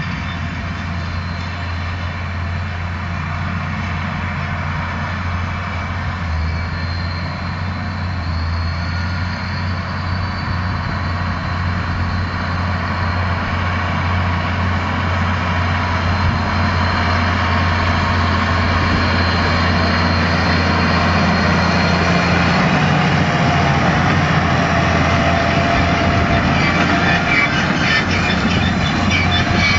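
Claas Ares 816 tractor engine running steadily under load, pulling a Claas Variant 180 RotoCut round baler baling straw. The engine hum and machine clatter grow gradually louder as the outfit comes close.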